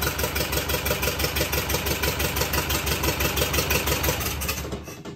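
Lister HR4 air-cooled four-cylinder diesel running with an even, rapid beat, freshly rebuilt. It dies away shortly before the end.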